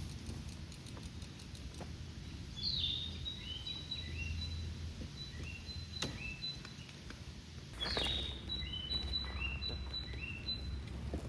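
A songbird singing twice, each phrase a loud opening note followed by a run of short, falling notes, over a low steady rumble of wind.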